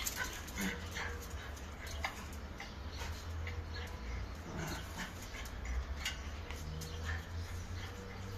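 A Xoloitzcuintli (Mexican hairless dog) giving short whimpers and yips at intervals as it plays with a cat, over a low steady rumble.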